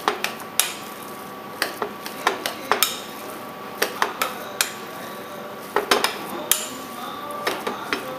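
Metal spoon mixing raw beef tartare in a glass bowl, clinking against the glass in irregular sharp clicks, several a second at times.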